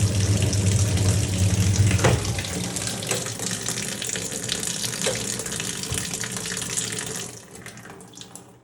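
Water rushing and splashing in a twin-tub washing machine, over a low electric motor hum that is strongest for the first two seconds. The water sound fades away a little after seven seconds.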